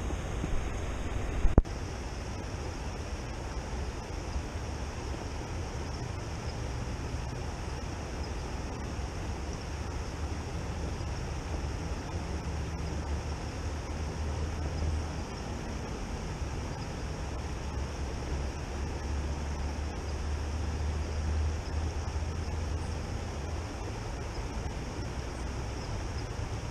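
Steady rushing noise of a shallow river running over rocks, with a low rumble underneath. A few sharp knocks about a second in.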